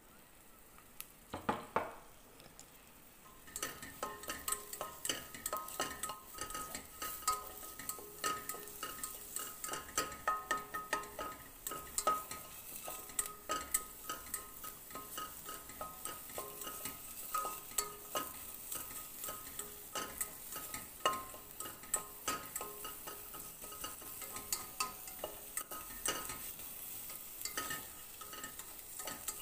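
Chopped onion and garlic sizzling in olive oil in a frying pan, stirred with a utensil that clicks and scrapes against the pan: the onion is being sautéed until it browns. A couple of knocks come first, and the sizzling and stirring start about three seconds in.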